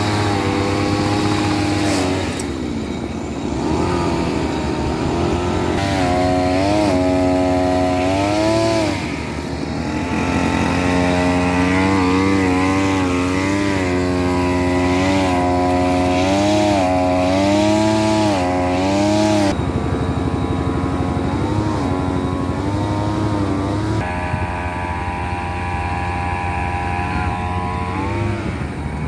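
Small engine of a homemade grass-cutting machine running continuously, its pitch rising and falling again and again as it is revved. About two-thirds of the way through, the sound turns duller and loses its upper range.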